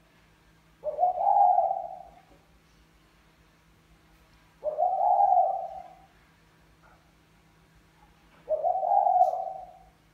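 Male spotted dove (cu gáy) in a cage cooing to call a hen: three loud coos, each a little over a second long, repeated about every four seconds.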